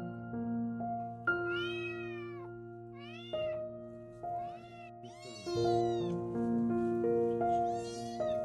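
A kitten meowing four times, each call rising then falling in pitch, in distress as its swollen belly is pressed. Background music of held notes plays underneath.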